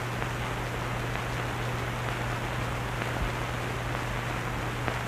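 Steady hiss with a low hum underneath: the background noise of an old film soundtrack, with no narration or music.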